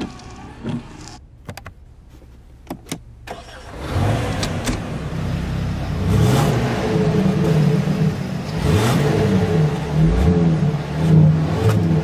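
Kia Stinger GT's twin-turbo V6 revving, its pitch rising and falling again and again, starting about four seconds in after a few sharp clicks.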